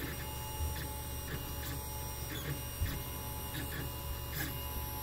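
Lulzbot Mini 3D printer printing, its stepper motors giving a steady whine broken by short irregular ticks as the print head moves.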